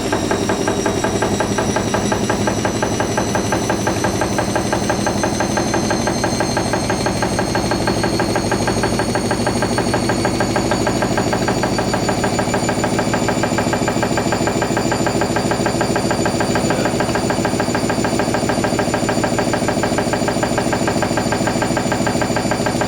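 Hoover NeXtra HNL3146 washing machine spinning on an intermediate spin between rinses. The drum motor's whine rises slowly in pitch as the spin builds speed, over a fast rhythmic pulsing.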